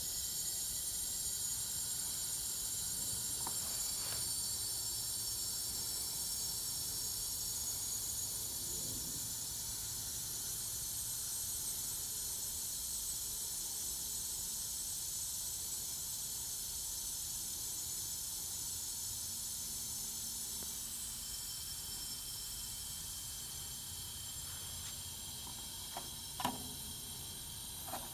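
Nitrogen hissing steadily from the cylinder through the regulator and gauge manifold into a heat pump's refrigerant lines, pressurising them for a leak test after a solder repair. The hiss grows fainter in the last several seconds as the nitrogen supply runs low, and a couple of small clicks come near the end.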